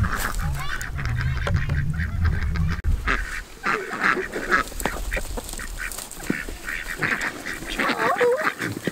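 Ducks quacking, a dense run of short calls from about three seconds in. Before that, a low rumble of the camera being carried.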